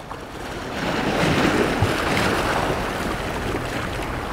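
Sea waves washing against shoreline rocks, a steady rushing that swells about a second in, with some wind on the microphone.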